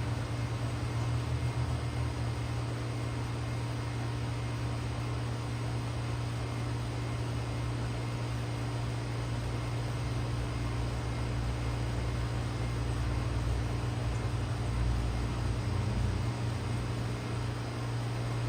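A 2004–06 Goodman heat pump running steadily in heat mode: a constant low compressor hum under the even rush of the fan.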